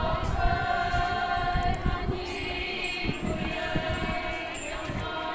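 Konyak Naga women singing a traditional festival chant together, holding long high notes of about a second and a half each with short breaks between them.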